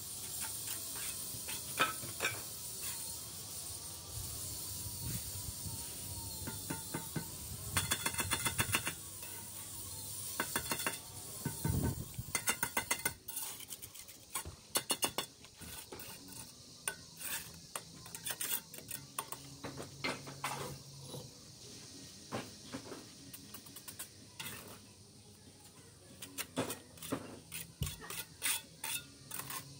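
Steel brick trowel scraping and spreading mortar on bricks and knocking bricks into place: a string of scrapes, clinks and knocks, with quick runs of repeated scraping strokes about eight and ten seconds in.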